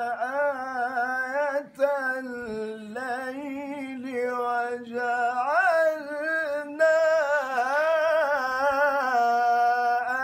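A man's solo voice reciting the Quran in melodic tajweed style, in maqam Bayati, drawing out long ornamented notes that waver and glide in pitch. The line breaks briefly about two seconds in and again about seven seconds in.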